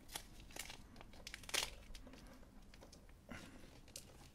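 Faint rustling and crinkling of PVC-sheathed twin and earth cables and gaffer tape being handled, with scattered short clicks, the sharpest about one and a half seconds in.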